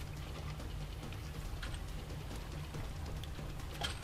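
Light water splashing at a boat's side as a hooked sailfish is held alongside, with a few short splashes, the clearest near the end, over a steady low rumble.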